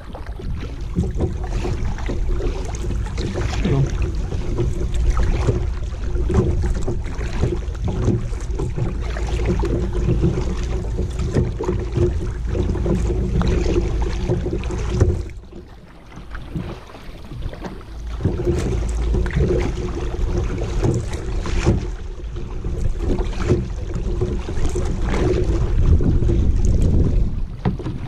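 Kayak paddle strokes splashing and dripping into the water, with a low rumble of wind on the microphone; it drops quieter for a couple of seconds about halfway.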